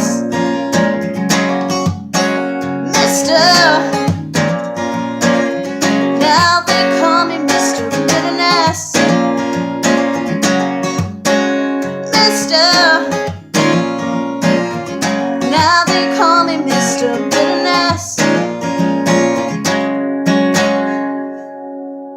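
Strummed acoustic guitar playing a song's closing bars, with a voice singing without words over it, the chords dying away near the end.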